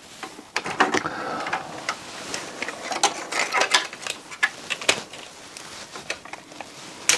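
Hands working on the parts of an opened CD player: an irregular string of small, sharp clicks and knocks of plastic and metal.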